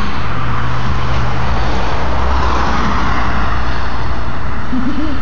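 Road traffic: a steady low engine hum, with a passing vehicle growing louder about halfway through.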